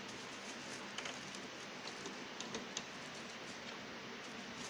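Faint, scattered light clicks and rustles of a dye-sublimation ink ribbon's plastic spools being handled and fitted into an open DNP photo printer, over a steady low hiss.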